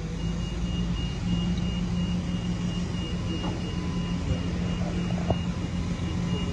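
A mobile crane's engine running steadily under load as it lifts a heavy steel sculpture, a constant low drone with a thin high whine above it.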